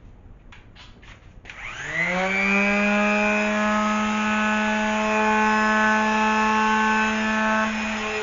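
Power sander starting up for sanding filler primer: a few brief scratchy strokes, then its motor spins up, rising in pitch about a second and a half in, and runs at a steady whine.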